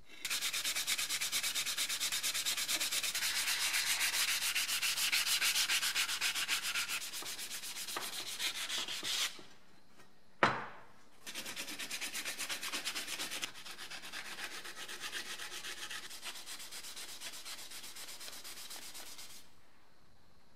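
Hand sanding with rapid back-and-forth strokes, in two spells: one of about nine seconds, then a short pause with a single sharp knock, then a second spell that stops shortly before the end.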